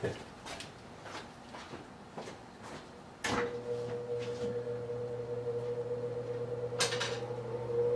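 A few light handling clicks, then a Dremel rotary tool switched on about three seconds in, its motor running at a steady pitch.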